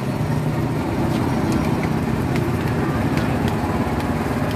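Steady outdoor street noise of passing traffic, with a few faint clicks scattered through it.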